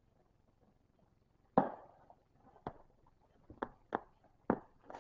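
Hard toys being handled: five sharp knocks over about three seconds, the first the loudest.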